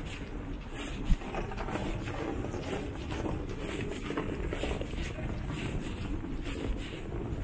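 Footsteps on brick paving at a steady walking pace, about two steps a second, over a steady rumble of street traffic. A short thump about a second in.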